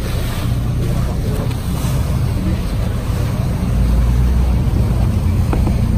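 Small motor tour boat under way: a steady low rumble of engine and rushing water, with wind buffeting the microphone. It grows a little louder just past halfway.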